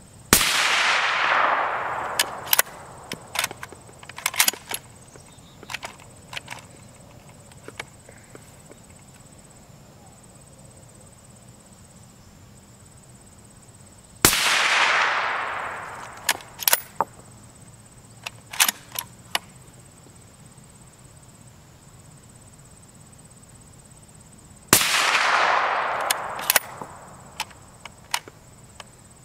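Suppressed .308 bolt-action rifle (CZ 557 UCS with a Q titanium suppressor) fired three times, the shots about 14 and 10 seconds apart. Each shot is a sharp crack followed by a long fading echo over a couple of seconds, then a few lighter clicks.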